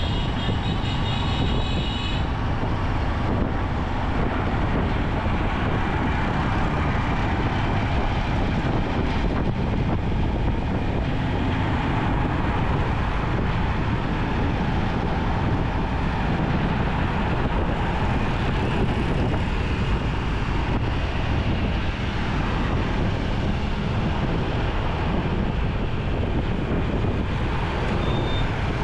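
Steady road noise from riding a motorcycle through city traffic: engine and traffic noise under a constant deep rumble. A short high tone sounds in the first two seconds and again briefly near the end.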